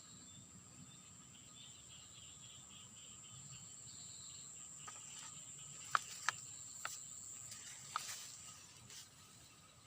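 Steady high-pitched insect chirring. A handful of sharp clicks or taps fall between about five and eight seconds in.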